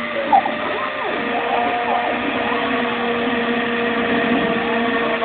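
CNC machine's axis motors running, a whine of several tones whose pitch glides up and down as the axes speed up and slow down, with a short blip about a third of a second in.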